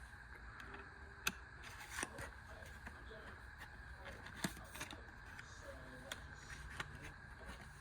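Faint scattered clicks and light rustling as a pocket knife is handled and packed back into its packaging.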